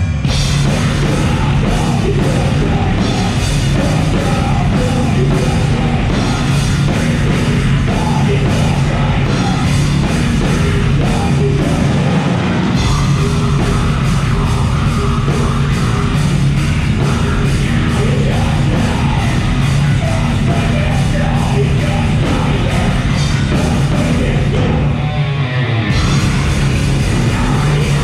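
A live rock band playing loudly, electric guitar and a full drum kit, heard from on stage. The band thins out briefly a couple of seconds before the end, then comes back in full.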